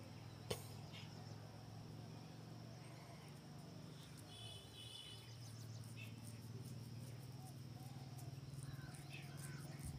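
Faint background ambience: a steady high-pitched cricket-like chirring over a low hum, with a few short bird-like chirps and a single click about half a second in.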